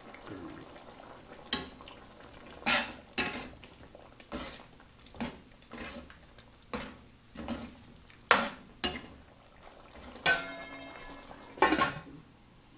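Stainless-steel ladle stirring a thick prawn curry in a metal pot, knocking and scraping against the pot in irregular sharp clanks about once a second. Near the end, two louder clanks ring on longer as a steel lid is set on the pot.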